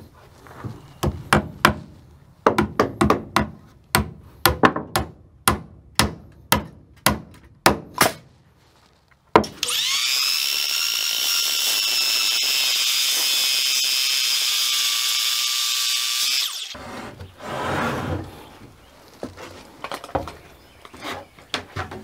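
A claw hammer nails a wooden wall stud, with about twenty sharp strikes in quick groups. Then a handheld circular saw starts with a click, runs steadily through a board for about six seconds and cuts off. A few knocks of lumber being handled follow.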